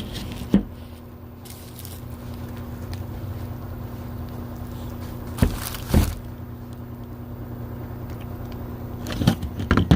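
A few sharp knocks and clunks of handling: one about half a second in, two around the middle and a cluster near the end, over a steady low hum.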